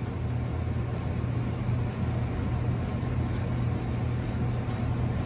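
Ceiling fans running, with a steady low electric hum and a wash of moving-air noise.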